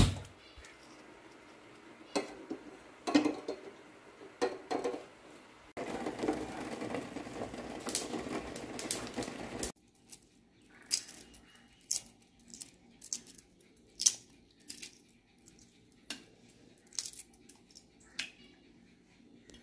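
Shells of boiled eggs being cracked and peeled over a steel pot of water: scattered sharp clicks and crackles, with a few louder knocks in the first few seconds. From about six seconds in, a steady rushing noise runs for about four seconds and then cuts off suddenly.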